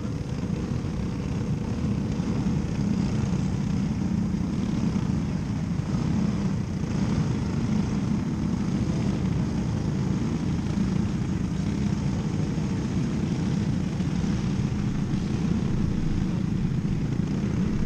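Race car engines running together in a steady low drone as the field circles the dirt oval.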